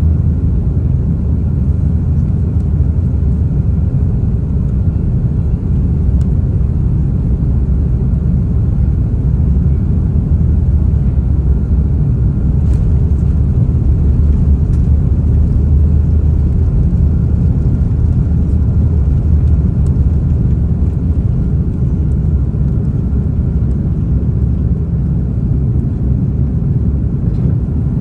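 Steady low rumble heard inside the cabin of an Airbus A330-300 airliner as it taxis, the engines and airframe droning evenly.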